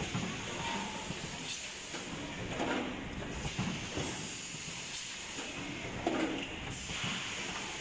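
Automatic rotary premade-pouch filling and sealing machine running: a steady mechanical hiss and rattle, broken by several short knocks and hisses every second or two as the stations cycle.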